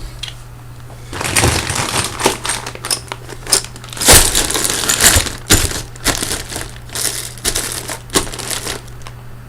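Metal Russian connector plugs and sockets clicking, knocking and rustling as they are packed back into an overfull cardboard box, with irregular knocks and the loudest one about four seconds in.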